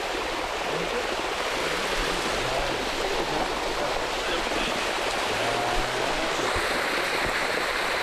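Shallow water rushing steadily down a limestone cascade, with faint voices now and then.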